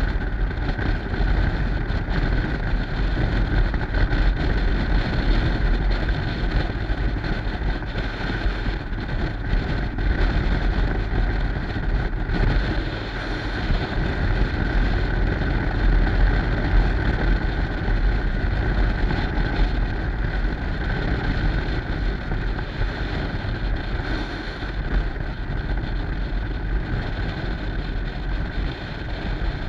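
Yamaha Stryker's V-twin engine running steadily under way, under heavy wind rushing and buffeting over the microphone.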